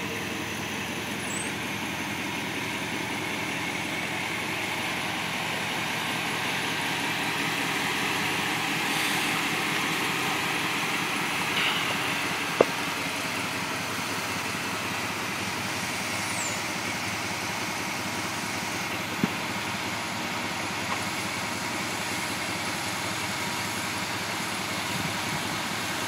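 Chevrolet 350 small-block V8 idling steadily in a 1947 Chevy street rod, with two short sharp clicks, one about halfway through and one later.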